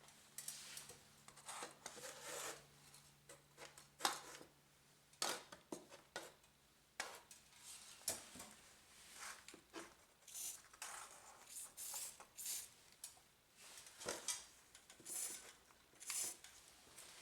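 Metal door hinges being handled and set down: scattered light clicks and clinks of metal on metal.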